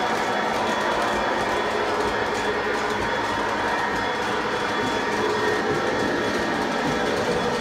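Three-rail O-gauge model train running on its track: a steady electric motor hum and wheel rumble.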